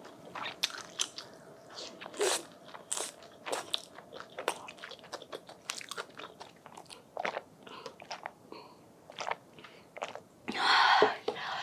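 Close-miked crunching and chewing of crisp rice paper (bánh tráng), in irregular sharp crackles. A louder, noisier crunch or rustle lasts about a second near the end.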